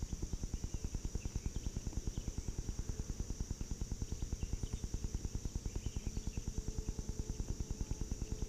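A steady high drone of insects, with faint scattered chirps. Under it runs a rapid, very even low pulsing, about ten pulses a second.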